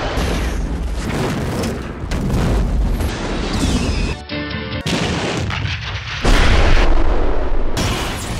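A fast string of explosions from film clips, each cut off abruptly by the next about every second, with music under them.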